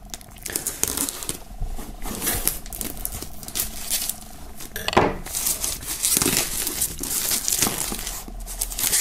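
Plastic shrink-wrap film crinkling and tearing as it is slit with a knife and pulled off a cardboard box, with a few louder scrapes near the middle.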